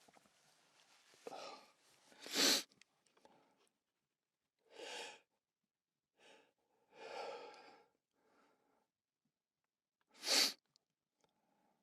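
A person sneezing twice, about two seconds in and again near the end, each a short, loud burst after a quick intake of breath, with softer breaths and sighs between. The sound is dry, in a sound-treated room.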